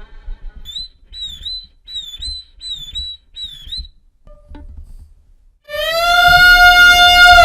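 Violin played to imitate animal calls: five short, high chirping notes, each dipping and rising in pitch. After a pause, a loud long held note of about two seconds follows.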